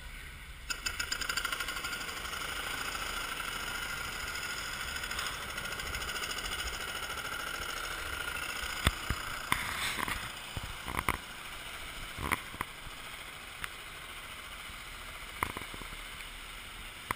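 Vehicle engine running with a fast, even pulse, coming in abruptly about a second in. Several short sharp knocks or clicks follow in the second half.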